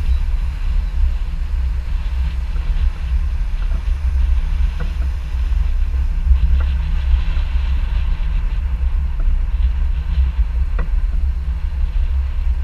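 Wind buffeting the microphone, a steady, gusting low rumble, over the hiss of surf breaking against the pier.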